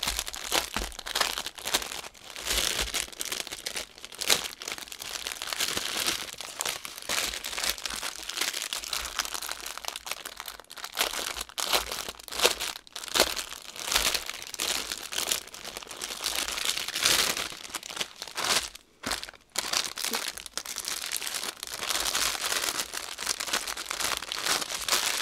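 Crinkly cellophane wrapping and plastic drill bags rustling and crackling as a bundle of diamond painting drill bags is unwrapped and handled, with irregular crackles throughout and a brief lull about three-quarters of the way through.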